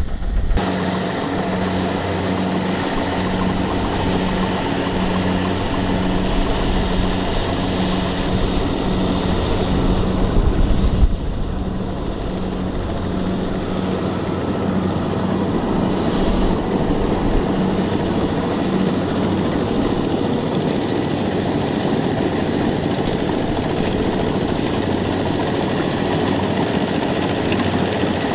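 Single-cylinder diesel engines of two-wheel walking tractors running steadily under load as they haul trailers of rice sacks through mud. A constant engine drone, with a short break about eleven seconds in.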